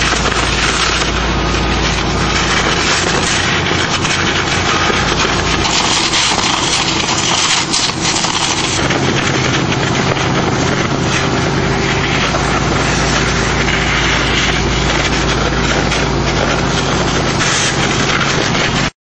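High-pressure water-jetting rig used to blast away concrete, running steadily: a loud, even hiss over the pump engine's drone. It cuts off suddenly near the end.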